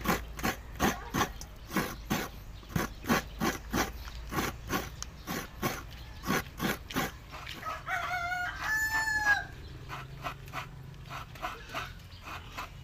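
Coconut meat being scraped on a grater into a steel basin: even rasping strokes, about three a second, for the first seven seconds. A rooster crows once about eight seconds in.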